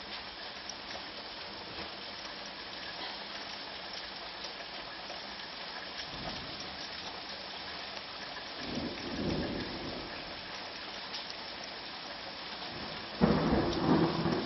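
Hard rain falling steadily in a thunderstorm, with low rolls of thunder about six and nine seconds in and a sudden, louder rumble of thunder near the end.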